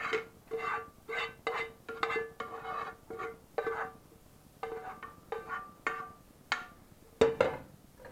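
A spatula scrapes and knocks against a frying pan held over a pot, about a dozen strokes at roughly two a second. Each stroke makes the metal ring briefly with a clear tone. A louder knock comes near the end.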